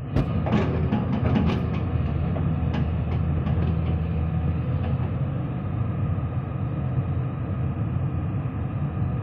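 Heavy earthmoving machine's diesel engine running steadily, with a series of sharp metallic knocks and clanks in the first few seconds.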